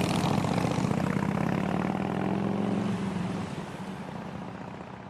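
Motorcycle engines passing at low speed with a pulsing engine note, fading away from about three seconds in.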